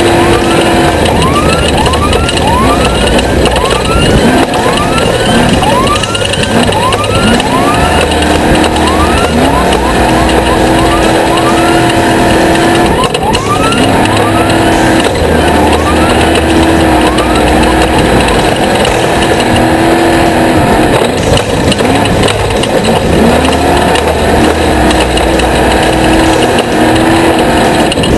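Off-road race car engines running hard, the pitch sweeping up again and again about once a second as the throttle is worked, over a steady engine drone.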